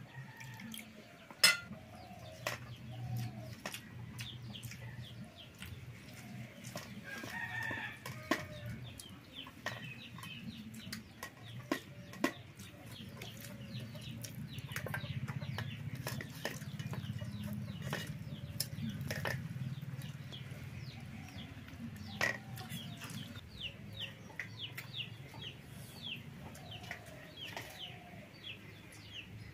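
Chickens clucking, with sharp clinks of steel utensils: a metal ladle against steel bowls, and plates and tumblers being handled. The loudest clink is about a second and a half in.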